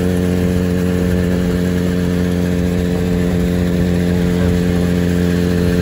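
Suzuki Bandit motorcycle's inline-four engine held at a steady high highway cruising speed, a constant drone under rushing wind and road noise.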